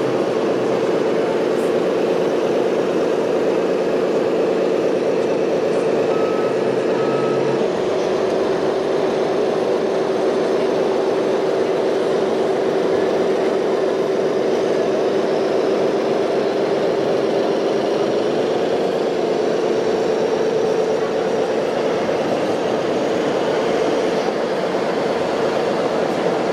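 Small electric motor and gearbox of a toy RC vehicle running steadily, a whine over a gear rattle, its pitch dropping a little about eight seconds in.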